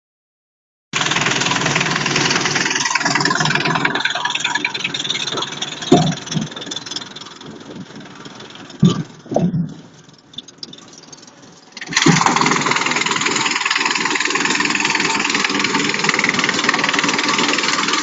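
Electric drum wood chipper running and chipping branches: a loud, dense mechanical noise. It falls away for a few seconds in the middle, with a few sharp knocks, then comes back loud all at once about twelve seconds in.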